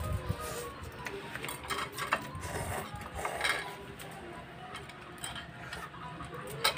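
Eating sounds: chopsticks and spoons clicking against ceramic bowls, with noodles being slurped about halfway through.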